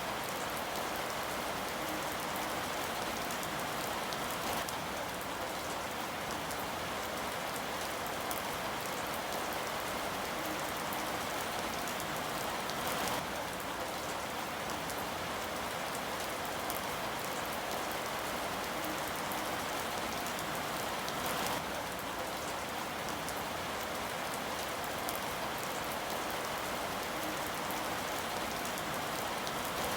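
Steady rain falling, a dense even patter of drops on a surface, with a couple of slightly heavier spatters.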